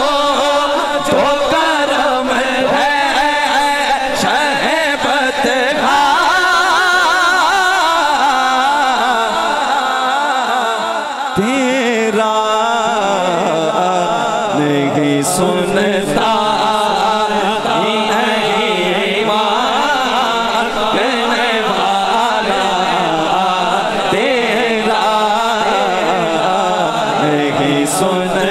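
A man singing a naat into a microphone, holding long, ornamented, wavering vocal lines with no clear words, in a chant-like style.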